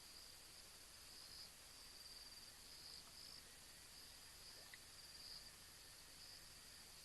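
Faint chorus of night insects trilling at one high pitch, swelling and fading in pulses every second or so, over a steady hiss.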